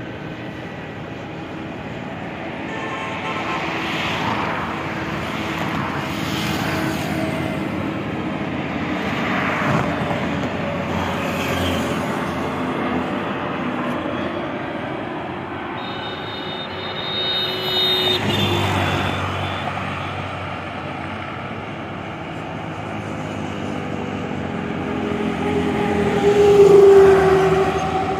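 Jet engines of an Airbus A320-family airliner on final approach with its gear down: a continuous engine rumble and whine that grows louder as the plane comes closer, loudest near the end.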